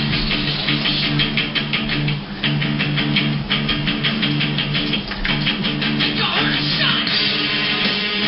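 Recorded hard rock music: an electric guitar riff with bass, played in a fast, even strummed rhythm over a held low chord, with a sweeping glide in pitch about six seconds in.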